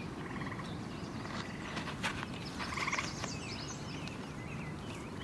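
Outdoor dusk ambience: small birds chirping, with short pulsed trills at the start and again about three seconds in, over a low, steady rumble. A few footfalls on sandy ground come about two seconds in.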